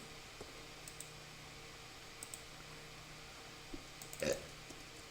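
Faint steady room hum with a few soft, short clicks scattered through, one a little louder about four seconds in.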